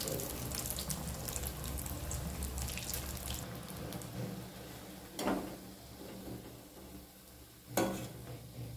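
Battered chops deep-frying in hot oil in a kadai: a dense crackling sizzle that thins out as the chops are lifted from the oil. A slotted spoon knocks against the pan about five seconds in and again near the end.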